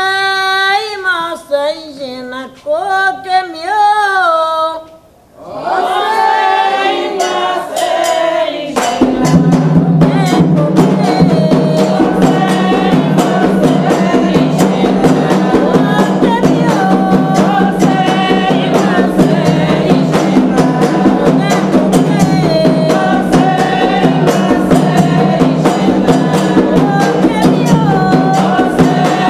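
A woman singing a Candomblé chant alone, her voice sliding between notes in short phrases. About nine seconds in, drums and a chorus come in and the chant carries on as full music with a steady beat.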